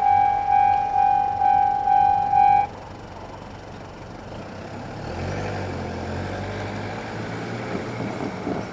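Japanese level-crossing electronic warning bell ringing about twice a second, then cutting off suddenly a little under three seconds in: the train has cleared the crossing. A low engine rumble rises about five seconds in.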